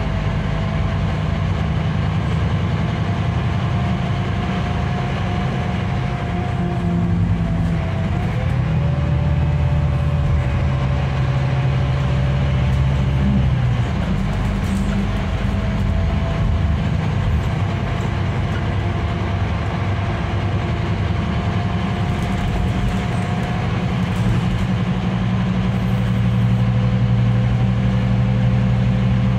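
Scania K310IB coach under way, heard from inside the passenger cabin: a steady diesel engine drone. Over it runs a faint whine that drops in pitch about eight seconds in and rises again around fourteen seconds.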